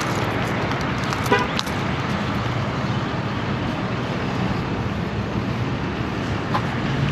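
Steady outdoor traffic and wind noise of a busy parking lot, with one short car-horn toot about a second and a half in.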